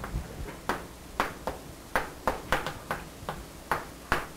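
Chalk writing on a blackboard: about a dozen sharp taps and short strokes of the chalk at an uneven pace as letters are written.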